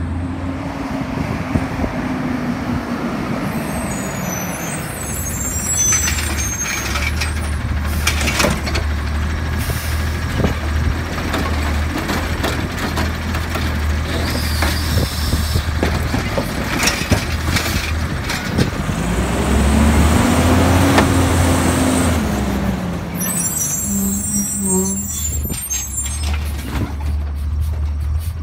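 Automated side-loader garbage truck working a curbside pickup: the diesel engine running steadily, the hydraulic arm whining up and down as it grabs a cart, and clanks and bangs as the cart is dumped into the hopper. Air brakes hiss as the truck stops and pulls away.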